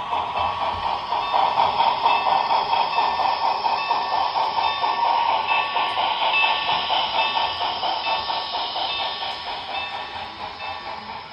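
Sound decoder of an HO-scale Broadway Limited Milwaukee Road S-3 4-8-4 steam locomotive playing a fast, steady exhaust chuff through its small onboard speaker, fading gradually over the last several seconds.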